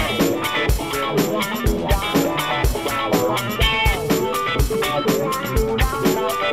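Background music: a guitar-led track with a drum kit keeping a steady beat.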